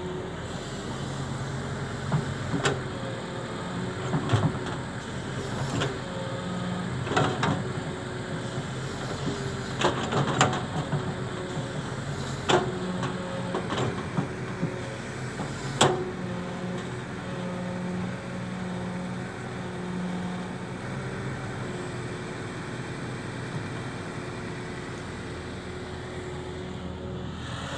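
Kobelko crawler excavator's diesel engine running steadily under load while it digs and swings, with a handful of sharp clanks from the digging arm in the first half.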